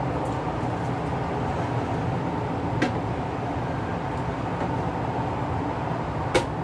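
Steady background hum, with a faint click about three seconds in and two sharp clicks near the end.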